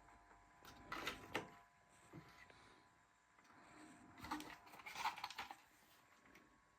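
Near silence with faint clicks and rustles in two short clusters, about a second in and again from about four to five and a half seconds in.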